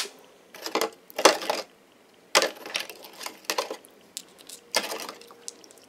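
A small brush scrubbing freshly rinsed gemstones, in several short bursts of scratchy clicking.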